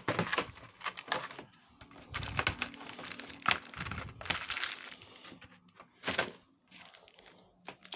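Foil booster-pack wrapper crinkling and tearing as a Yu-Gi-Oh pack is handled and opened, in irregular rustles and sharp crackles.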